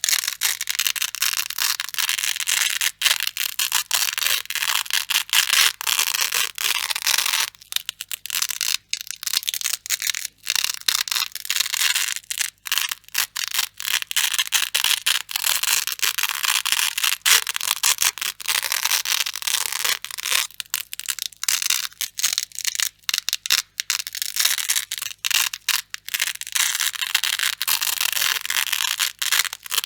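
Grey Velcro hook-and-loop fastener being pulled apart and pressed together again and again, a crunchy, crackling rip with many brief pauses.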